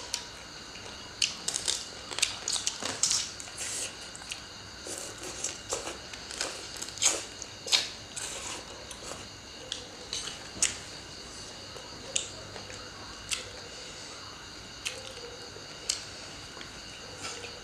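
Eating sounds: irregular sharp crunches and clicks as food is chewed and handled with fingers and chopsticks. They come thickly in the first ten seconds and more sparsely after.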